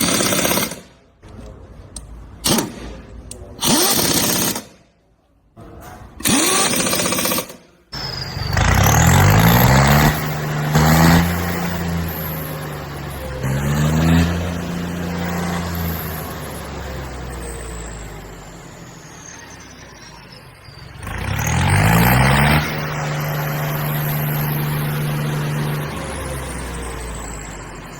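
Tractor's diesel engine revving up and then running steadily. It rises in pitch and settles three times: about a third of the way in, near the middle, and about three quarters through. Before that comes a series of short, loud bursts of noise with gaps between them.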